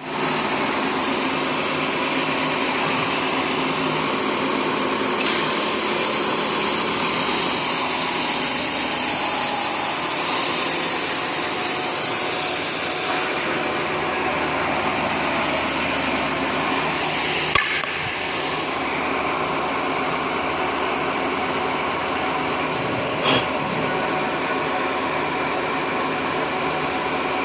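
Woodworking sanding machine running steadily, a dense machine noise with a steady hum. A louder high hiss comes in about five seconds in and drops away after about eight seconds, and two short clicks sound later.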